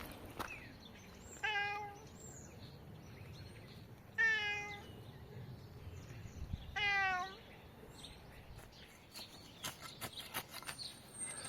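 A cat meowing three times, each meow about half a second long and a few seconds apart, followed by a run of light clicks near the end.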